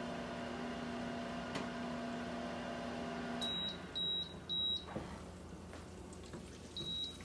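Emeril Power Air Fryer 360 countertop oven running with a steady hum, which cuts off about three and a half seconds in. Three short high beeps follow, and one more comes near the end.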